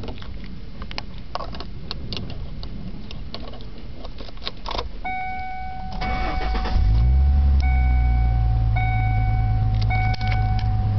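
Keys jingle, then a car's warning chime sounds, and the 1997 Ford Mustang's 3.8-litre V6 cranks about 6 seconds in and catches about a second later. It then settles into a steady idle.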